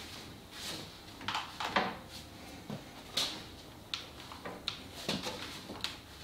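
Bar clamps being tightened by hand on a glue-up: a run of short, irregular scrapes and clicks as the screw handles are turned.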